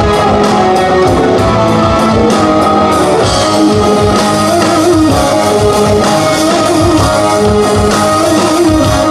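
Live rock band playing loudly, electric guitar to the fore over drums.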